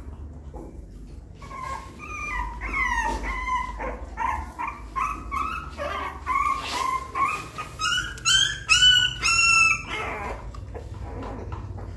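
Young puppy crying: a run of short, high whines and yelps, loudest and highest in a few cries about eight seconds in, then dying away.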